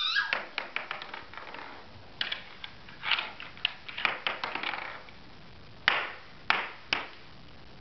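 Scattered light taps and knocks of a small ball, a toy car and small hands on a wooden coffee table, with three sharper knocks in the second half.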